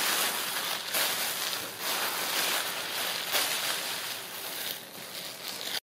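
Kittens rustling and crinkling tissue paper and a gift bag as they play in it, an irregular rustle that swells and dips.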